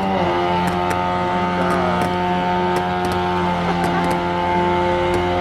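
A car engine held at steady high revs: one constant droning pitch after a slight dip at the start.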